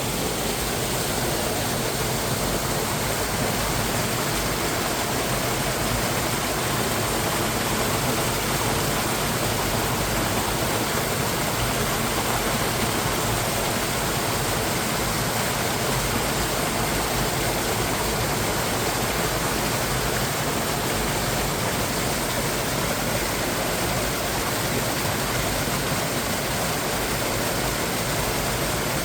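Mountain stream water rushing over rocks in a cascade: a loud, steady, unbroken rush.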